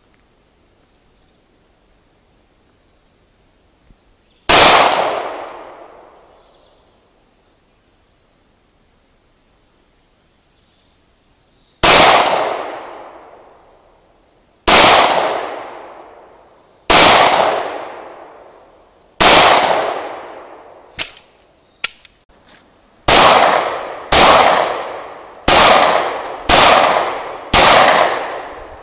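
Heckler & Koch P30L pistol firing ten shots, each with a long echoing decay. A single shot comes first, then a pause of about seven seconds, then four shots about two seconds apart, then five in quicker succession about a second apart.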